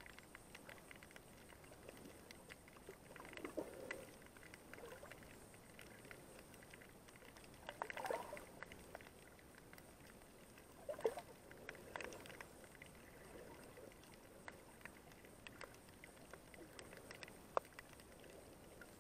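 Faint underwater sound over a rocky reef: a low hiss dotted with many tiny clicks, and a few louder, short muffled bursts.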